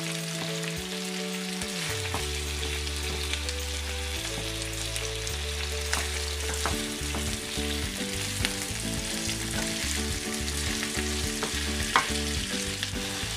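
Chicken pieces sizzling in hot oil in a non-stick frying pan while a wooden spatula turns and scrapes them so they brown, with scattered clicks from the stirring and one louder knock near the end.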